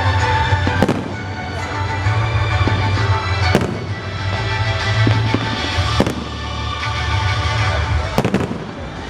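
Fireworks display: four sharp bangs of shells bursting, about two to three seconds apart, with crackling between them, over music playing continuously in the background.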